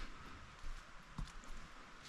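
Footsteps of someone walking on a forest trail: a few soft, dull steps about half a second apart over a faint steady hiss.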